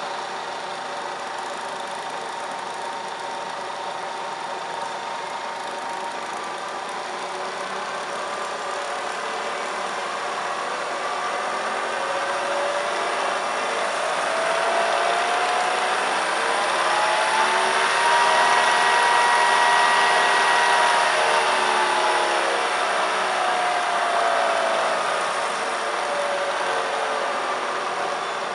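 Vertical milling machine's variable-speed head running, its spindle drive making a steady hum and whine. As the speed-change handwheel is turned, the pitch and loudness climb to a peak about two-thirds of the way through, then fall again as the spindle is slowed back down.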